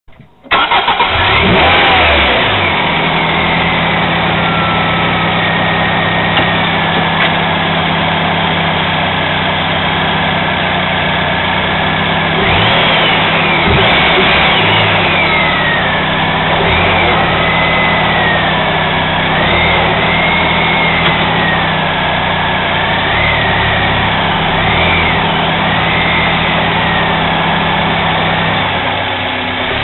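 Honda Euro R car engine starting about half a second in and then running steadily, with a rising and falling pitch recurring through the second half.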